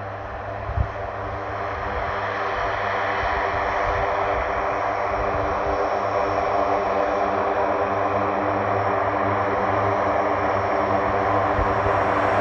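Lockheed C-130J Hercules taxiing, its four Rolls-Royce AE 2100 turboprops giving a steady propeller drone that grows louder as the aircraft turns and comes closer. A brief thump about a second in.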